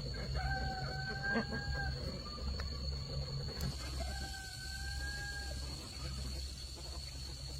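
A rooster crowing twice, each crow a long held call lasting about a second and a half, the second coming a couple of seconds after the first ends.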